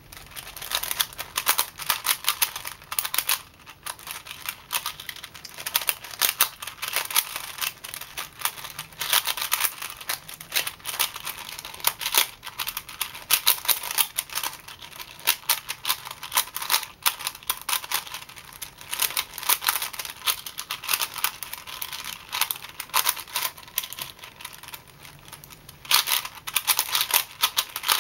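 Plastic 4x4x4 speed cube being turned rapidly during a timed solve: dense runs of clicking and clacking as the layers snap round, in quick bursts with short pauses between them.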